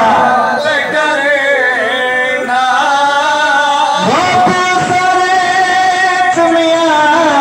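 Men chanting a noha, the Shia lament for Muharram, in long held, wavering lines, amplified over a PA. There is a quick rising slide in pitch about four seconds in.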